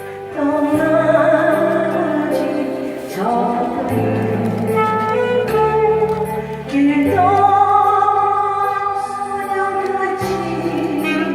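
A woman singing a Korean ballad over instrumental accompaniment, holding long notes with vibrato, with a bass line that changes notes every couple of seconds.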